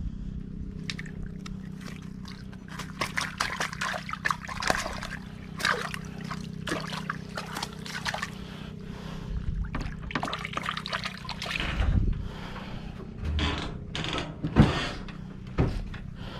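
Water splashing and trickling in irregular bursts over a steady low hum.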